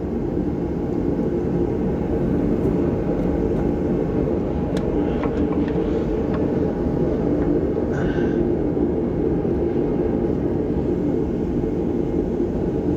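A steady mechanical drone that holds one pitch throughout, with a few faint clicks about five and eight seconds in.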